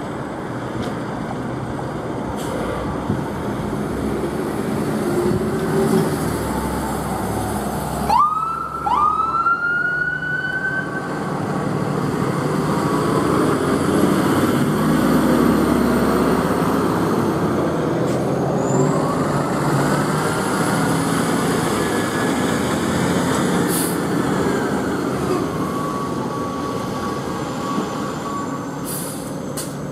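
Fire trucks pulling out on an emergency call, diesel engines running. About eight seconds in a siren gives two quick upward chirps, and later a long siren wail rises, holds and falls away once.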